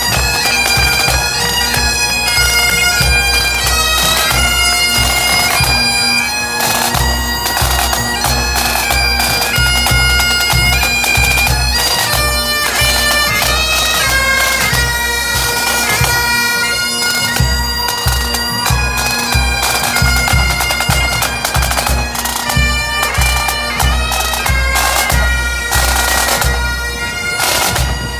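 Pipe band playing a march: Great Highland bagpipes carry the melody over their steady drone, with snare and bass drums beating.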